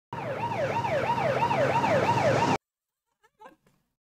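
Ambulance siren in a fast yelp, each cycle sweeping quickly up and sliding down, about three cycles a second, over a low steady hum. It cuts off suddenly about two and a half seconds in.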